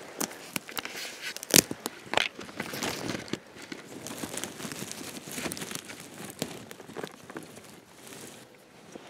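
Dry twigs and pine-needle litter crackling and rustling as a hand pushes through it on the forest floor, with sharp cracks about one and a half and two seconds in, then quieter rustling.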